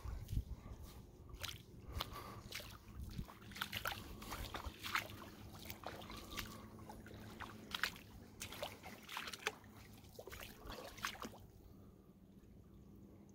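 Small irregular splashes and drips of water around a kayak from paddling, dying away about 11 seconds in.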